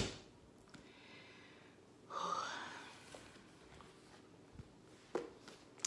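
A woman sighs once, a breathy exhale of under a second about two seconds in. A few faint clicks come before and after it.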